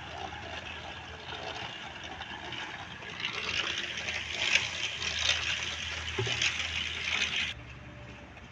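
Wet concrete pouring and sloshing into plinth beam formwork, a steady rushing, splashing noise over a faint low hum. It grows louder about three seconds in and cuts off suddenly near the end.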